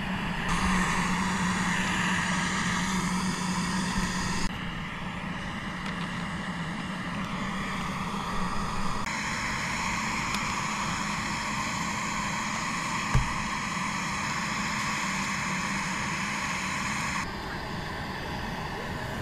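Canister gas camp stove burner running steadily under a pot of water coming to the boil, a constant rushing hiss with a low hum, its tone shifting abruptly a few times. A single sharp knock about 13 seconds in.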